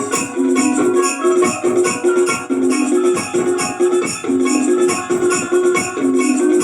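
Music: a fast, even shaker rhythm over a short low melodic phrase that repeats about once a second.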